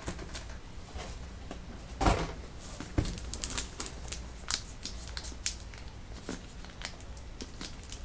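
Handling noises as a power supply is unboxed: cardboard and packaging knocking and crinkling. There are two louder knocks about two and three seconds in, then a quick run of small clicks and crackles.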